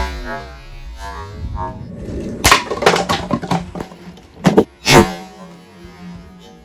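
Homemade slingshot shots striking plastic targets: sharp cracks of shot and impact, one about two and a half seconds in and two close together near the five-second mark, as the projectile punches a hanging plastic water bottle.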